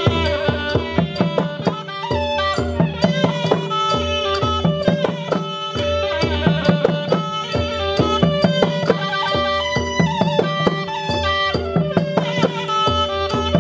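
Thai traditional music played live: a wind instrument plays a winding melody over a steady held tone, with drums and fast, regular percussion strokes.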